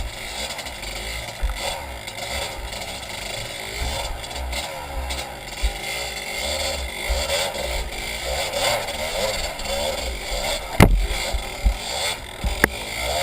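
Kawasaki 220 trail bike engine running at low trail speed, its pitch rising and falling with the throttle, with wind rumble on the microphone. Two sharp knocks come near the end.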